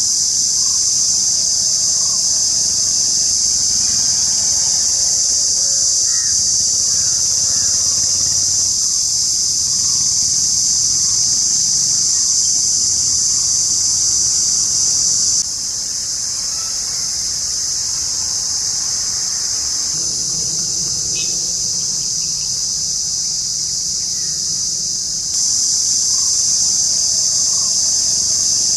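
Cicada droning: a loud, steady, high-pitched buzz that drops abruptly in level about halfway through and comes back just as abruptly near the end.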